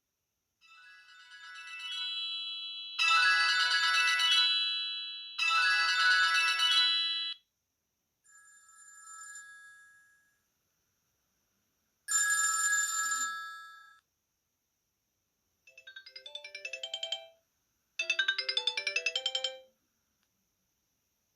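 Sony Ericsson T610 mobile phone playing its built-in polyphonic ringtones, one short snippet after another. About seven electronic melodies, each a second or two long, are separated by brief silences; one in the middle is faint.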